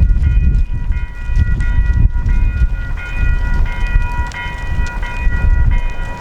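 Diesel freight train running by with a heavy low rumble, and a steady high ringing tone held over it that breaks and resumes about once a second.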